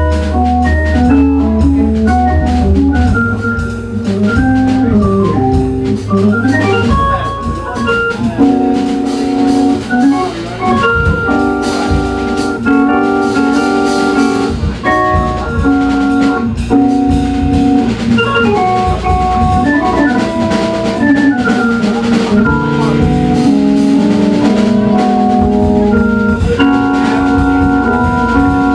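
Jazz organ playing a slow ballad: held chords and moving melodic lines, over deep bass notes sustained for the first few seconds. A drum kit accompanies it with frequent cymbal and drum strokes.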